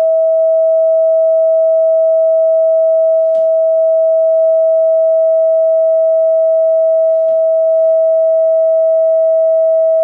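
Steady 647 Hz sine test tone (about E5) from a tone-generator app, with faint overtones above it. Two faint clicks come about three and seven seconds in.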